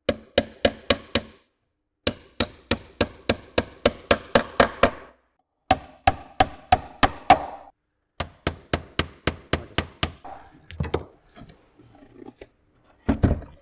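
Small hammer driving galvanized nails through a beehive roof's sheet-metal lid into its wooden rim: four runs of quick strikes, about four or five a second, with short pauses between. Near the end come softer scattered knocks as the roof is handled and turned over.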